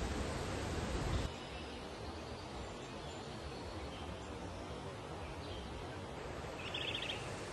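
Loud steady rush of waterfall water, which cuts off suddenly about a second in to a quieter steady rush with small birds chirping over it, including a quick rapid trill near the end.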